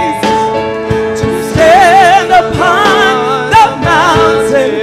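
A woman singing a gospel praise song into a microphone, with wide vibrato on held notes, over steady sustained chords from the accompaniment.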